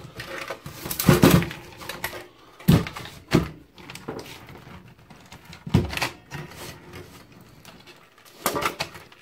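Irregular clunks, knocks and rattles of sheet-metal casing and plastic parts being handled during the dismantling of a Denon hi-fi's twin cassette deck unit. The loudest knocks come about a second in and around three and six seconds in.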